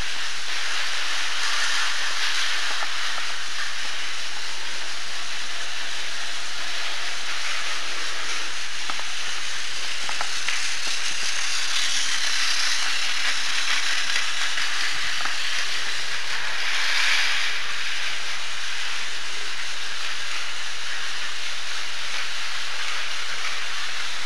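Battery-powered Tomy plastic toy trains running on plastic track, a steady whirring hiss with a few faint clicks. It swells briefly about halfway through and again a few seconds later, as a train passes close by.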